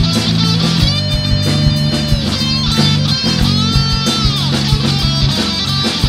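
Live rock band playing: electric guitar and bass guitar over a steady drum beat, with a few held notes that bend in pitch.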